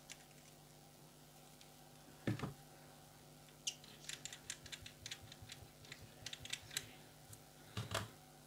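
Quick, light metallic clicks, about twenty over three seconds, as the Uwell Nunchaku RDA is unscrewed by hand from its glass stand. A dull knock comes before them, about two seconds in, and another near the end.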